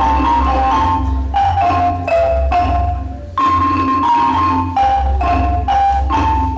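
A school ensemble playing a melody on xylophones and glockenspiels, short struck notes moving steadily from pitch to pitch.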